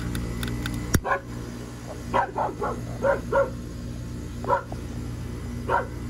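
A dog barking in short, separate barks, about eight of them spread over the few seconds, over the steady hum of a running air-conditioner condenser unit. A single sharp click comes about a second in.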